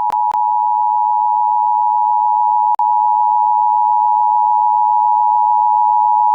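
Emergency Alert System attention signal: two steady tones just under 1 kHz (853 and 960 Hz) sounding together, loud and unbroken apart from brief clicks near the start and a short dropout about three seconds in. It is the alert tone that precedes the spoken emergency message, here an evacuation notice.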